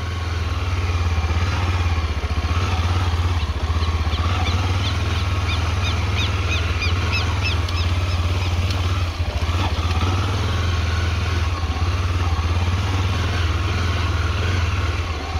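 Small motorcycle engine running steadily at low speed as the bike rolls across a pasture. A run of high, quickly repeated chirps sounds from about four to seven seconds in.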